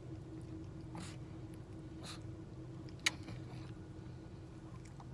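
Steady low hum of a car's interior, with a few faint soft noises and one sharp click about three seconds in.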